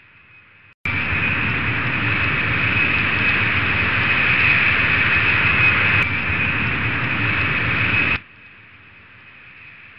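Jet airliner engines, used as a sound effect: a steady rushing noise with a high, steady whine. It cuts in abruptly about a second in and drops abruptly to a much fainter whine about eight seconds in.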